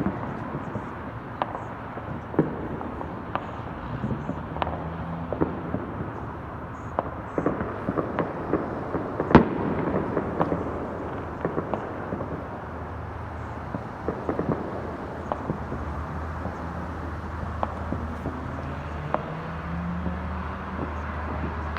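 Fireworks and firecrackers going off in scattered, irregular pops and cracks, several a second at times, with the single loudest crack about nine seconds in. A steady low rumble runs underneath.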